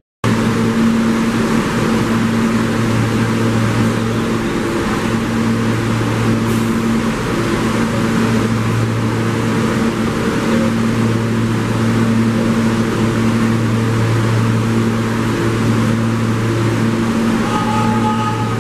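A steady, loud mechanical drone: a strong low hum with a few steady tones above it that drop in and out. A higher whine joins in near the end.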